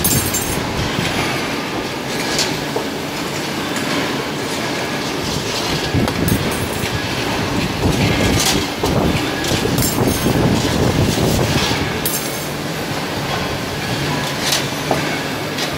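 CNC wire bending machine running, feeding and bending wire into S shapes: a steady mechanical clatter with sharp clacks about every two seconds.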